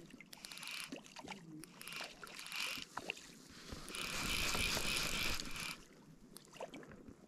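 Fly reel's ratchet clicking in short spells as a hooked trout is played, then a loud, continuous buzz of the reel lasting nearly two seconds from about four seconds in.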